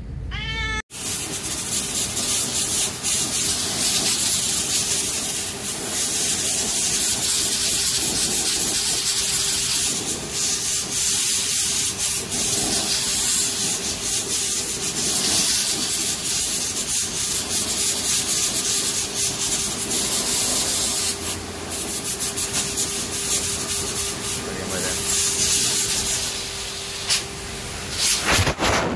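Electric pet hair dryer blowing steadily on a wet, freshly bathed Maine Coon: a loud, even rush of air with a faint steady hum underneath. It starts abruptly about a second in.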